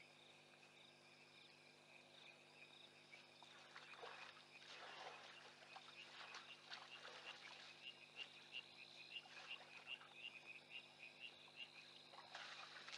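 Faint night chorus of insects and frogs at a waterhole, with a frog giving a regular run of short high pips, about two or three a second, through the middle. An African elephant moves in the shallow water with soft irregular splashes. Near the end a louder rush of water starts as it squirts a trunkful into its mouth to drink.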